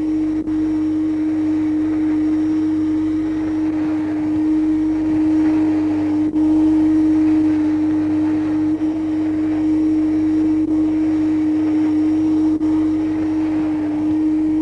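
Vacuum cleaner running steadily at one constant pitch.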